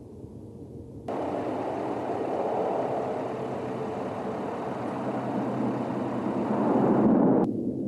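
C-27J Spartan twin-turboprop transport on landing, its engines and propellers running. The sound is fainter at first, jumps suddenly to a loud rush about a second in, swells near the end, and cuts off abruptly.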